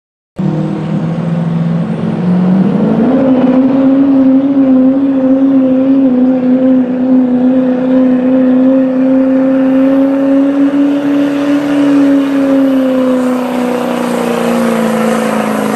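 GMC pickup's diesel engine pulling a sled at full throttle under heavy load. It starts about half a second in, climbs in pitch around two to three seconds in, holds high and steady, then drops slowly in pitch near the end.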